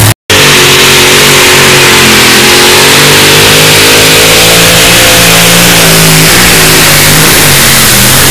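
Two-wheel-drive pulling truck's engine run hard at full throttle while it pulls the weight sled. The sound is very loud and sustained, with the pitch rising a little and easing back down near the end. It drops out for a split second just after the start.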